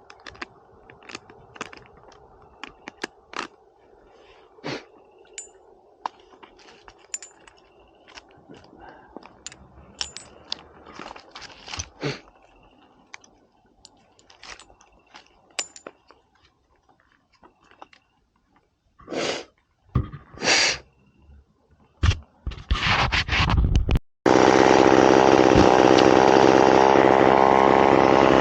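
Scattered light clicks and knocks, then a chainsaw being pull-started: several quick cord pulls about 19 s in, after which the two-stroke engine catches a little past 24 s and runs steadily and loudly.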